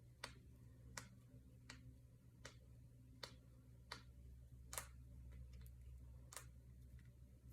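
Finger joints and knuckles cracking, a sharp pop about every three-quarters of a second, one near the middle louder than the rest.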